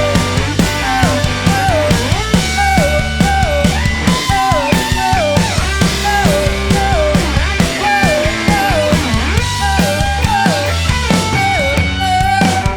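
Rock band playing an instrumental passage on electric guitar, bass and drum kit. A short falling guitar figure repeats a little faster than once a second over steady bass and drums.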